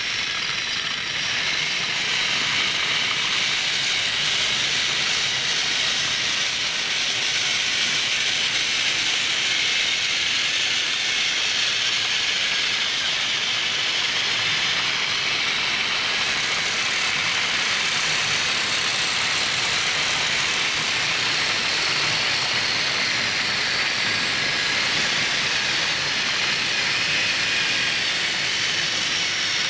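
Motorized toy trains running on plastic track: a steady, high whirring of small motors and wheels.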